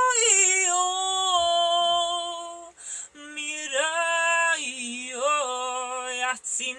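A woman singing wordless light-language tones in long held notes. Her pitch slides down at the start, breaks off briefly about three seconds in, then returns with notes that rise, waver and fall.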